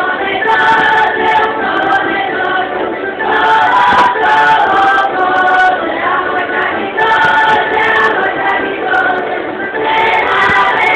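Croatian folk dancers singing a folk song together in chorus as they dance in a circle, men's and women's voices in sustained phrases.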